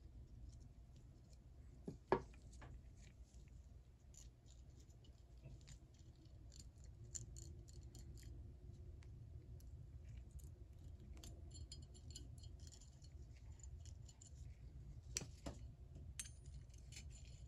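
Faint small metal clicks and scrapes as a pick and gloved fingers seat a coil spring against a pawl inside a Proto ratchet head, with a sharper click about two seconds in and another near the end.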